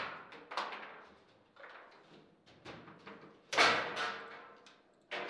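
Table football in play: the ball clacking against the plastic players and the table walls in a string of sharp knocks, the loudest about three and a half seconds in.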